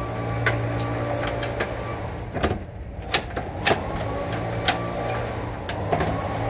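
A steady low mechanical hum, like a motor running, with scattered sharp clicks and taps over it.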